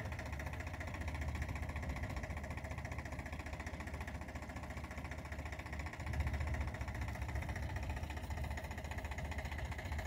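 Swaraj 960 FE tractor's diesel engine running under load as it pulls on a rope, a steady low rumble that grows louder about six seconds in.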